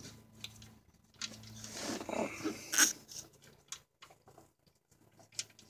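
Scattered light clicks, taps and rustling of a gloved hand and tool working at the oil pan drain plug under a car, with one sharper click about three seconds in.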